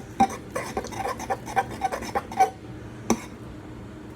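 A utensil stirring glue slime in a bowl, clicking and clinking against the bowl in a quick irregular run, the loudest knock about three seconds in. The glue has been mixed with activator and is starting to form into slime.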